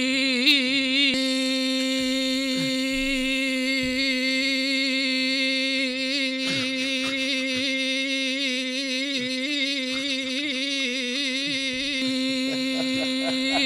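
A person imitating a stuck car horn with one long, unbroken vocal "beep", held on a single steady note whose pitch wavers slightly now and then.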